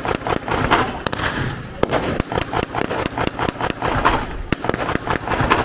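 Irregular gunfire from blank-firing rifles and small arms in a WWII battle reenactment: many sharp cracks, several a second and sometimes overlapping, each with a short echoing tail.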